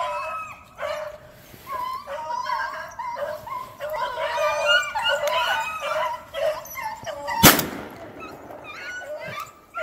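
Several rabbit-hunting hounds baying as they run a rabbit on the trail, with their cries overlapping. About seven and a half seconds in, a single loud shotgun shot rings out.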